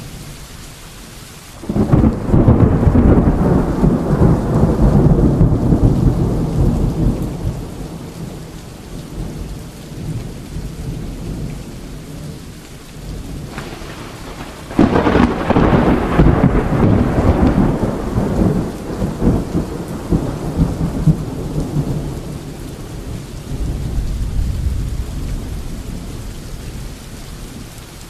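Thunderstorm: steady rain with two long rolls of thunder. The first starts about two seconds in and the second, beginning suddenly, comes about halfway through; each rumbles on for several seconds before fading back into the rain.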